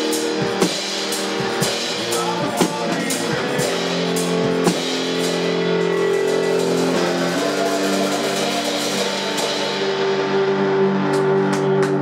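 Live blues-rock on electric guitar and drum kit: a steady beat with a drum hit about once a second at first, then long held guitar chords ringing while the drumming drops back, and a quick run of drum hits near the end.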